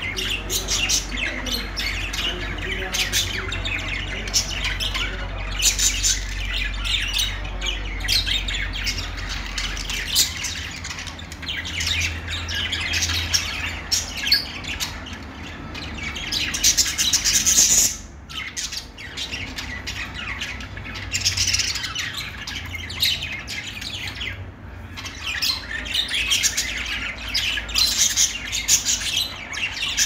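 A flock of caged budgerigars chattering, a continuous jumble of overlapping chirps and squawks. The chatter thins out briefly about eighteen seconds in, then picks up again.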